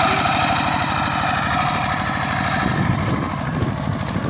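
Small engine of a two-wheel farm tractor running steadily with a fast, even chugging beat while hauling a trailer loaded with sacks of rice.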